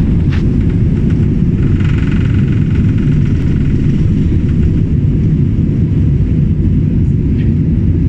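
Jet airliner's engines at takeoff thrust, heard inside the cabin: a loud, steady low rumble through the takeoff roll and lift-off, with a high whine over it for a second or so about two seconds in.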